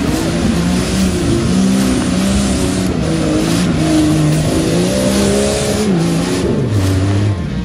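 Rock crawler's engine revving in repeated throttle bursts as it climbs a rocky, muddy slope, the pitch rising and falling. The revs drop near the end.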